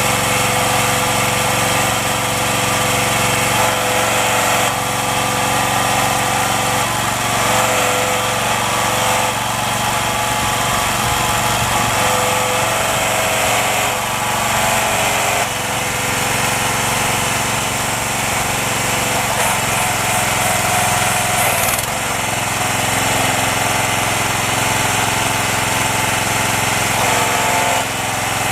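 Small gasoline engine of a compact excavator running steadily, its tone shifting now and then.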